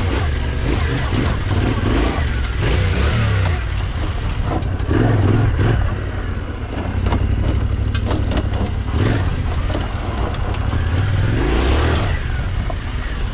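Yamaha Ténéré 700's 689 cc parallel-twin engine pulling the bike over a dirt trail, its revs rising and falling as the rider works the throttle, with scattered clicks of stones under the tyres.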